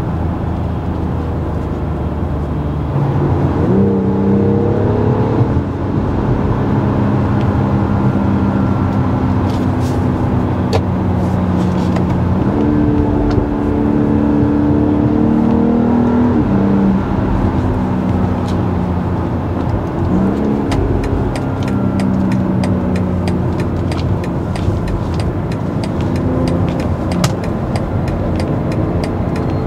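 BMW X3 M40i's 3.0-litre twin-scroll turbocharged straight-six engine and stock exhaust, heard from inside the cabin while driving. The engine note rises in pitch with revs several times, about three seconds in, near the middle and again about twenty seconds in, and drops back between, over steady road rumble.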